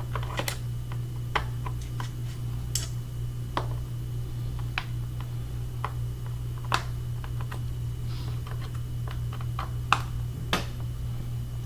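Phillips screwdriver clicking and tapping against the small screws of a laptop's bottom panel as they are undone, light irregular clicks about once or twice a second, over a steady low hum.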